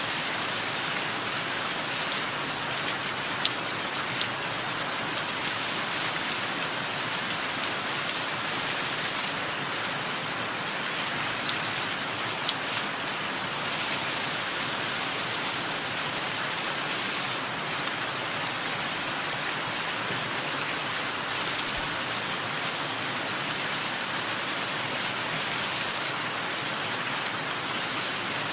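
Steady rain hiss with a bird chirping at intervals: short, high, falling chirps in quick pairs or threes every few seconds.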